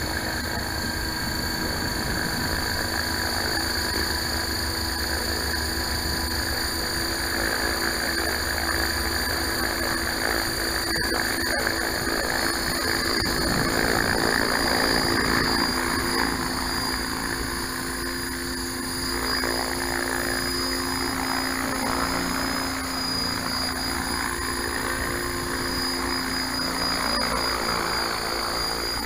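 HobbyKing T-REX 600–clone radio-controlled helicopter running with its main rotor spinning up until it lifts into a low hover near the end; a steady mechanical hum with held tones.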